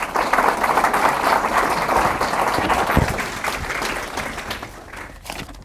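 Audience applause, a dense crackle of many hands clapping, loud for about three seconds and then dying away.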